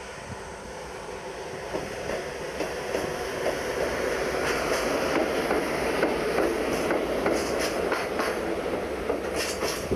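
Container wagons of a freight train rolling past as it brakes to a stop, growing louder over the first few seconds. From about halfway in the wheels clack over rail joints, under a dense grinding noise from the wagons' brakes.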